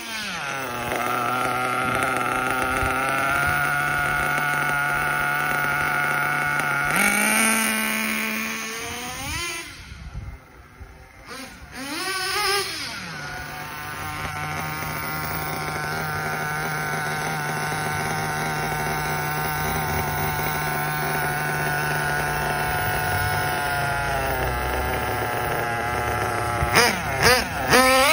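Kyosho KE21 .21 nitro engine in a 1/8-scale buggy running at high revs as the car drives on the road. It holds a steady high pitch for long stretches, with revving rises and falls near the start, between about seven and thirteen seconds in, and near the end. It fades briefly around ten seconds in. The engine is being test-run on the move after its idle has been set.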